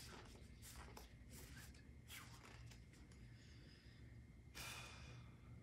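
Faint, crisp rustles of paper banknotes being flicked through one by one as they are counted, a few a second at first, with a longer swish about four and a half seconds in, over a low steady room hum.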